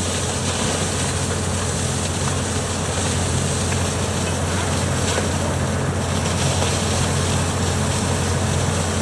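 Heavy machine engine running steadily: a constant low hum under an even wash of mechanical noise, with no change in speed.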